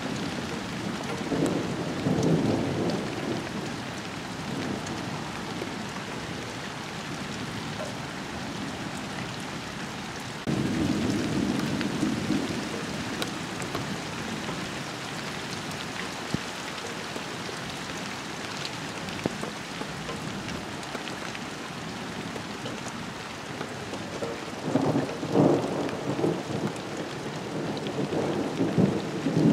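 Steady rain falling on garden foliage, with low rumbles of thunder rolling in a few times; the longest and loudest rumbling comes near the end.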